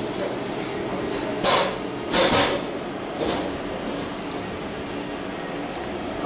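English bulldog puppy chewing and mouthing a dental chew stick, with three short, loud noisy bursts about a second and a half, two seconds and three seconds in, over a steady hiss.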